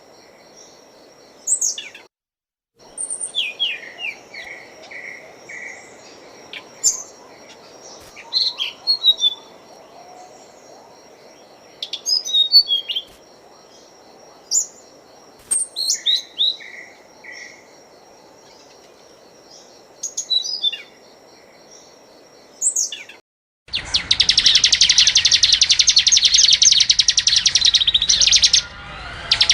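Small songbirds calling: scattered short, sharp chirps and quick sweeping notes over a steady high-pitched tone. About 23 seconds in, this gives way abruptly to a loud, dense, fast trill that runs on.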